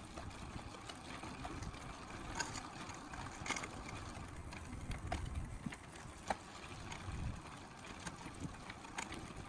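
Outdoor background noise: a steady low rumble with scattered light clicks and taps.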